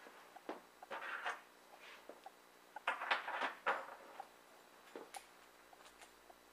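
Video cables and a small VGA plug adapter being picked up and handled on a tabletop: rustling and light clicks, with a louder clatter about three seconds in.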